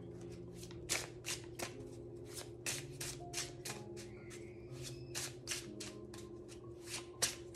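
A Neo Rider tarot deck being shuffled by hand: a quick run of sharp card slaps and flicks, about two or three a second.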